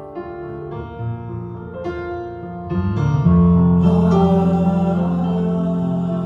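Instrumental introduction to a Southern gospel song: piano or keyboard chords, joined about three seconds in by bass and a fuller band, and the music gets louder.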